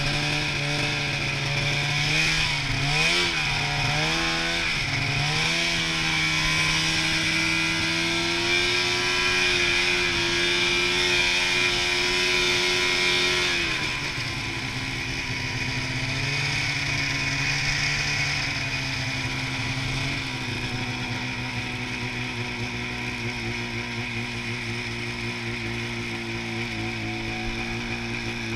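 Snowmobile engine running under way, its pitch rising and falling with the throttle for the first few seconds, then holding steady. About fourteen seconds in it drops suddenly to a lower, steady pitch for the rest of the ride.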